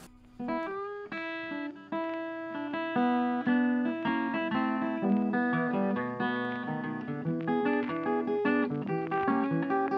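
Background music: an acoustic guitar picking a melody of plucked notes, starting about half a second in.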